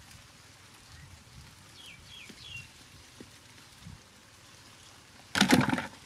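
The cardboard door flap of a box bird trap falling shut, a brief loud cardboard rattle near the end. Earlier a bird chirps faintly three times.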